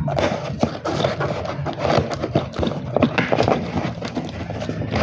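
Rapid, irregular clattering and scraping knocks of hard objects.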